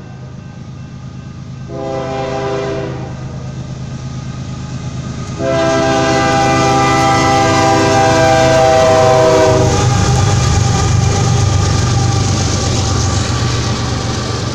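Union Pacific diesel freight locomotive sounding its horn as it approaches a grade crossing: a short blast about two seconds in and a long, louder blast of about four seconds starting about five seconds in, over the engine's steady rumble. After the horn stops, the locomotive passes and the freight cars roll by with wheel noise on the rails.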